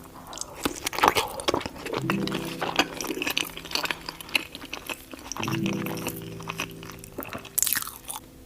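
Close-up eating of a seafood boil: a run of wet crunches, bites and chewing clicks, densest about a second in. Background music plays under it, with held notes that begin twice.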